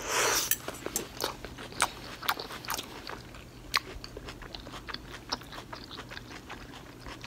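Close-up chewing of a stuffed bell pepper with rice and ground turkey: many small, wet mouth clicks and smacks, after a brief burst of noise at the start.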